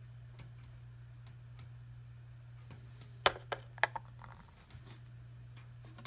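A steel Ganzo G723 folding knife set down on a glass-topped digital kitchen scale: three sharp clicks a little over three seconds in. A steady low hum runs underneath.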